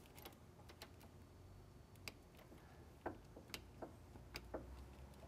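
Near silence with faint, scattered small clicks, more of them in the second half, from hand work on a hydraulic clutch slave cylinder during bleeding: a wrench held on its bleeder screw while the clutch cable is pulled.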